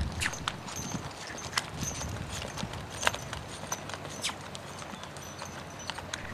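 Hoofbeats of a saddled Quarter Horse loping on a lunge line over arena dirt, an irregular run of dull thuds and sharper clicks.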